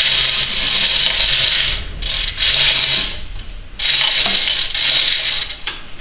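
Manual chain hoist being worked, its steel chain rattling through the hoist in three long runs with short breaks between.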